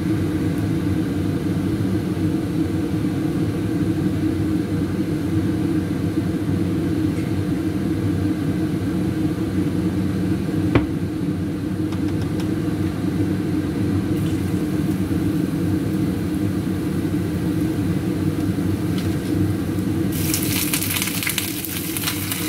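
Steady low rumble of a kitchen stove setup under a heating wok, with a single sharp click about halfway through. Near the end, torn lettuce is tipped into hot oil in a stainless steel wok and starts sizzling loudly.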